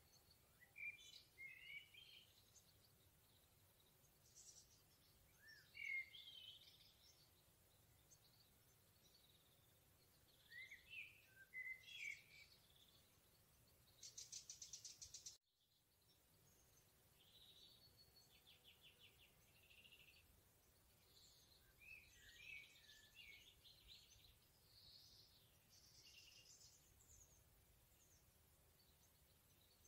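Wild songbirds singing in a forest, faint. Short warbling phrases come every few seconds with a couple of fast, buzzy trills. The sound cuts out for a moment about halfway through.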